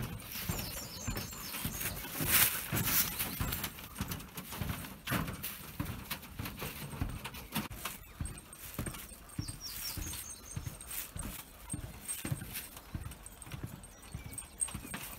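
Footsteps on a wooden boardwalk, knocking at an even walking pace of about two steps a second. Small birds chirp now and then.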